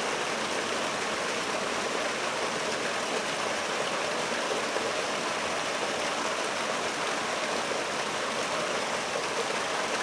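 Steady, even outdoor background hiss with nothing standing out from it.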